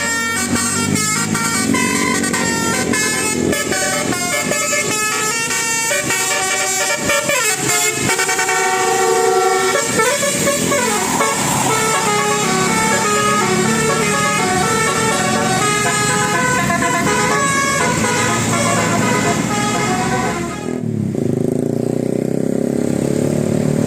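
Bus telolet horn, a multi-trumpet musical horn on a bus, playing a fast tune of stepped, changing pitches with a few sliding glides about a third of the way through. Near the end the higher tones drop out and lower horn notes carry on.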